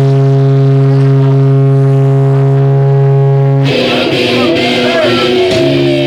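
Live amplified drone: one steady low note with a full stack of overtones, held for nearly four seconds. It breaks off for a couple of seconds of voices and shouting, then comes back near the end.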